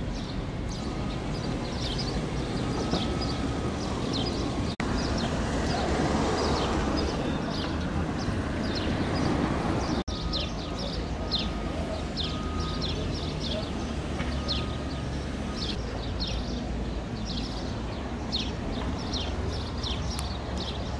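Outdoor ambience: a steady low rumble with many short, high chirps of small birds throughout. The sound drops out briefly twice.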